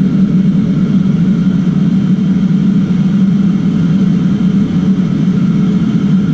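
Gas burner of a commercial wok range burning steadily under an empty wok as it heats: a loud, even, low rumbling noise.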